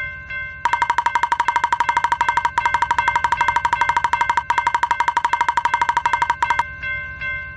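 Japanese level-crossing warning bell ringing its rapid, even 'kan-kan' alarm, loud for most of the stretch and softer at the start and end, over a steady low rumble.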